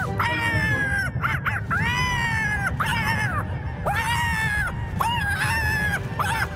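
Cartoon rooster crowing over and over, a voiced cock-a-doodle-doo in a string of long calls, each arching up and dropping off at the end, over a low steady background.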